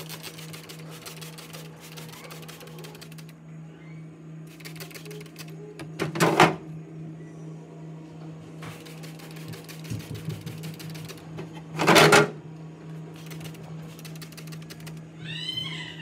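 A pump spray bottle of cleaner sprays two short loud bursts, about six seconds apart, inside a fridge. Between them come fine rapid clicking and rustling of gloved hands handling the plastic shelves and drawers, over a steady low hum.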